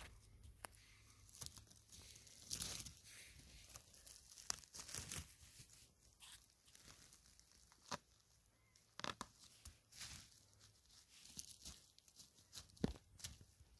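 Hands rustling and snapping dry spruce needles, twigs and moss on the forest floor and pulling a porcini mushroom out of the ground: faint, scattered crackling and tearing in a few short clusters.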